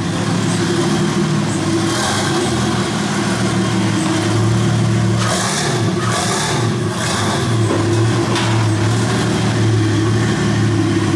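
Ford AU Falcon's compound-turbocharged 4.0-litre straight-six running at a steady low idle as the car creeps forward, with a few short bursts of hiss over it.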